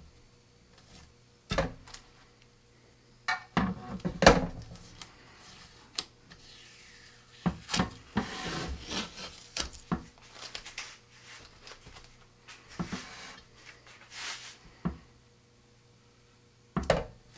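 Blue painter's tape being peeled in several pulls off a carbon-fibre rocket body tube, stripped from along freshly epoxied fin fillets to lift the excess epoxy, with handling knocks and rubs against the tube. The pulls come as short rasping tears, the longest about 8 and 14 seconds in, among scattered sharp knocks.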